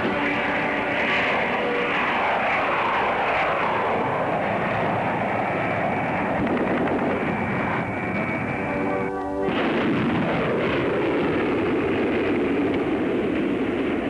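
Documentary background music over the noise of jet aircraft, whose whine falls in pitch as they pass: once about a second in and again about nine seconds in.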